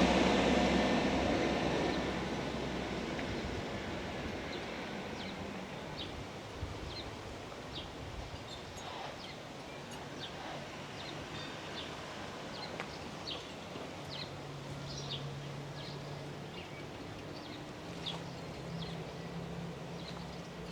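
Outdoor ambience with scattered short bird chirps. A loud rushing noise dies away over the first two seconds, and a low steady hum comes in about two-thirds of the way through.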